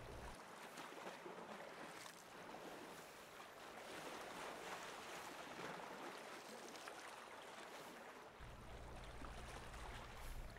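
Faint lakeside ambience: small waves lapping softly on a rocky shore, an even hiss with no distinct events.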